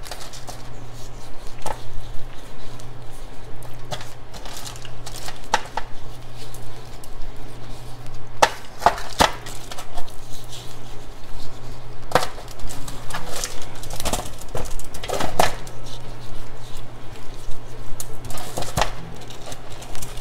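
Hands rubbing and turning oiled acorn squash slices on a foil-lined baking tray: irregular crinkles of aluminium foil and soft knocks of the squash pieces, over a steady low hum.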